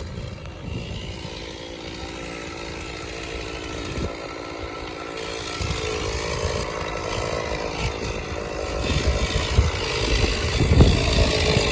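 Stihl MS460 two-stroke chainsaw running, growing louder over the last few seconds as it revs.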